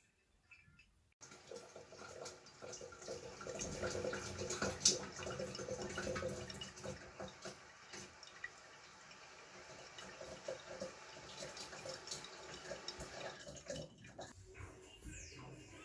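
Water running from a tap into a sink, with small knocks and clicks from things handled under it. It starts suddenly about a second in, is loudest early on, and cuts off near the end.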